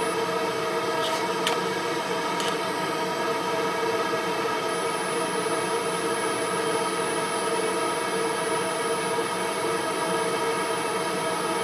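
A 20-watt fiber laser marker working on plastic tags: a steady machine hum, with a thin high whine that stops just after the start and comes back about five seconds in, as marking of the next tag begins. A few light clicks fall in the gap.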